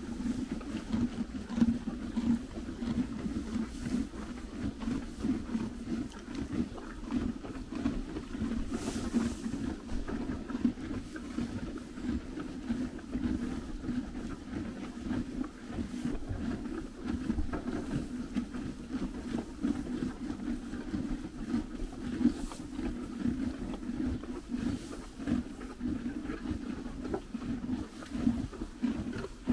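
Ponies eating hay at a feeding rack: steady chewing and grinding with the rustle of hay being pulled, and a few louder rustles now and then.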